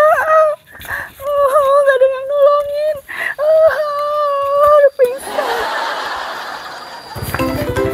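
A woman's drawn-out whining cries without words, several in a row, each held on one high, wavering pitch. About five seconds in they give way to a hissing whoosh, and a light tune with marimba-like notes starts near the end.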